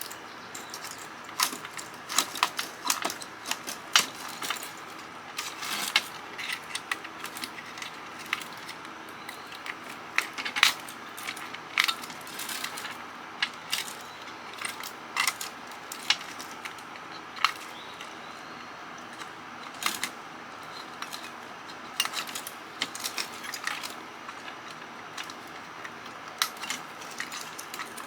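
Cobra 29 CB radio being dismantled by hand: irregular clicks, snaps and small metallic clatter as its internal wiring is pulled and cut off the chassis.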